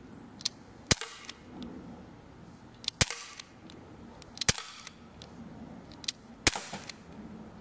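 Daisy Powerline 15XT CO2 BB pistol firing four sharp shots, one every one and a half to two seconds, each with a fainter click or knock close beside it.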